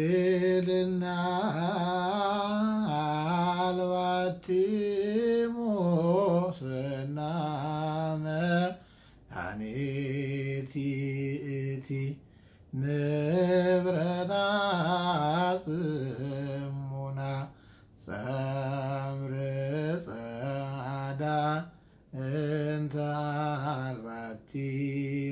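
A man chanting solo and unaccompanied: an Ethiopian Orthodox Abun hymn in the church's zema chant. He sings long held notes that waver and slide in melismas, in about five phrases broken by short breaths.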